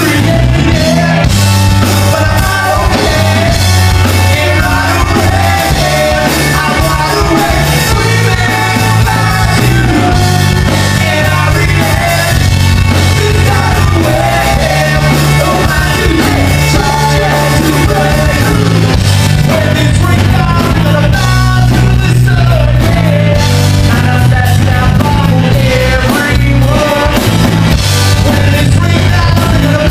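Live rock band playing loud: a male singer over electric guitar, bass guitar and a drum kit.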